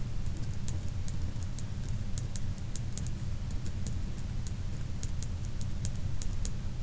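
Felt-tip marker writing numbers on paper: a run of short, light strokes, a few per second, over a steady low hum.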